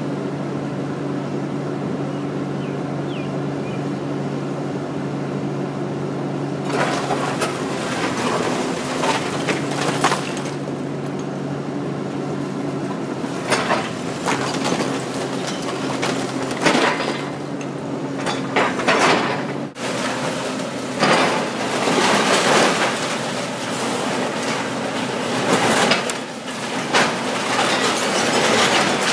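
Komatsu hydraulic excavator's diesel engine running steadily as its demolition grapple works at a brick wall. From about seven seconds in come repeated crashes and clatter of brick and masonry breaking and falling.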